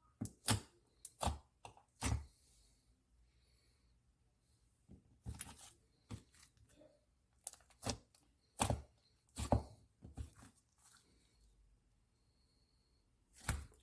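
Slime being pressed and poked by hand, giving irregular clusters of sharp clicks and pops with short pauses between.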